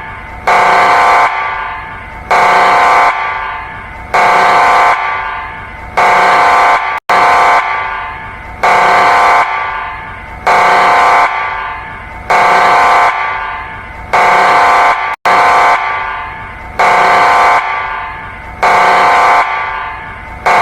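Emergency warning alarm: a harsh horn-like tone sounding in short blasts, one about every two seconds, each trailing off in an echo.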